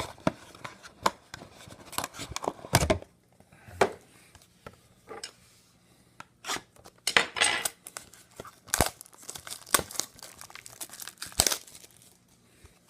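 Packaging on a trading card box being torn open and crinkled, in irregular short rustles and sharp clicks, with a longer crinkling stretch about halfway through.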